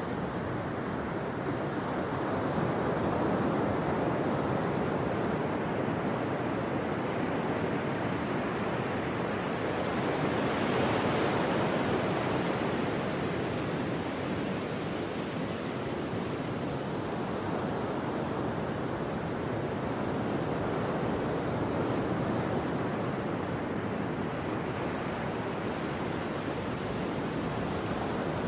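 Ocean surf: a steady rush of breaking waves that swells louder twice.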